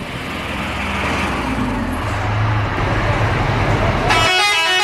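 A bus passing close by, its engine and road noise growing louder. Near the end its musical multi-tone 'telolet' horn sounds briefly, with several notes at once.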